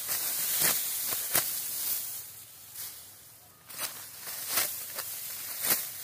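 Hand sickle cutting through dry, ripe wheat stalks: a series of short, crisp cuts and rustles roughly every half second, with a lull of about a second a little past the middle.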